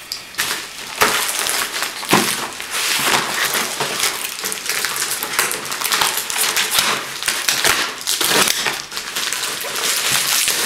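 A plastic mailing bag being slit with a knife and torn open by hand: continuous crinkling and rustling of the plastic, with many sharp crackles.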